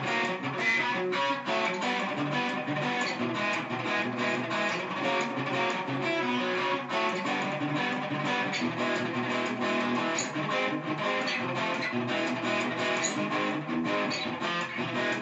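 Guitar music: a continuous run of quick plucked and strummed guitar notes at an even level.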